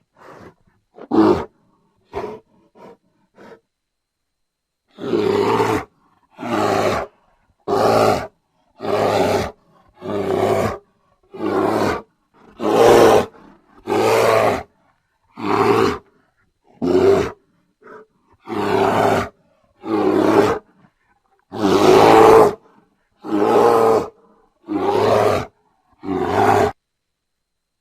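A bear roaring and growling: a few short grunts at first, then, from about five seconds in, a long run of loud roars of about a second each, one after another with brief silences between.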